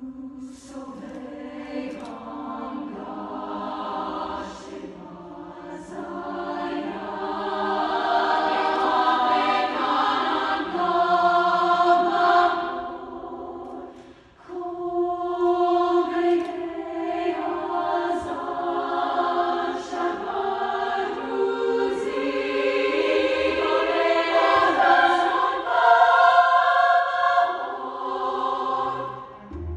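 Women's choir singing in full harmony, the phrases swelling in loudness, with a short break about halfway through before the voices come back in.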